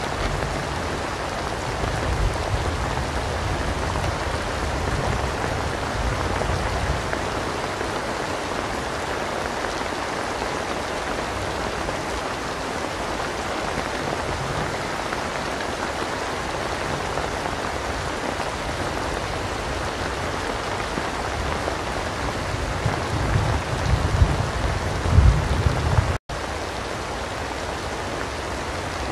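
Steady rain, with low rolling thunder rumbling under it near the start and again building toward the end, loudest just before the sound cuts out for an instant; after the cut, rain alone.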